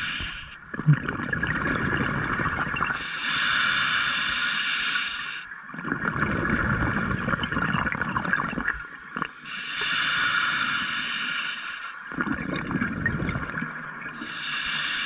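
Scuba diver's regulator breathing underwater: a hissing inhalation of about two and a half seconds alternates with a bubbling exhalation, about three breaths in all, with a short knock about a second in.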